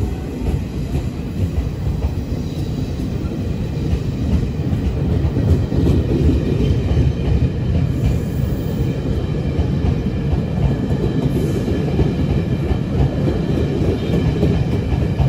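Taiwan Railway Chu-Kuang express passenger coaches rolling past a station platform as the train pulls out: a steady low rumble of wheels on rail that grows a little louder.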